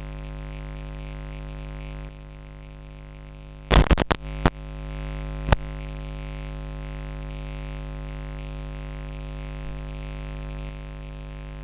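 Steady drone holding several fixed pitches over a low hum. A cluster of loud sharp clicks comes about four seconds in, and another single click about a second and a half later.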